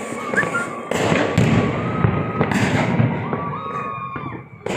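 Many fireworks going off together: a dense run of booms and crackles, with a high whistling tone coming and going above them.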